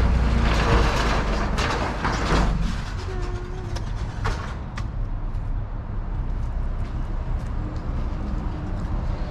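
Metal roll-up storage unit door being raised with a rattling clatter for about two and a half seconds, then light clicks over a steady low rumble.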